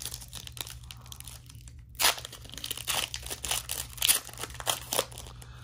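Shiny foil wrapper of a Panini Revolution basketball card pack crinkling and tearing as it is ripped open by hand, with sharper, louder rips about two and four seconds in.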